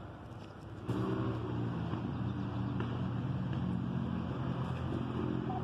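A motor engine running steadily with a low hum, cutting in abruptly about a second in.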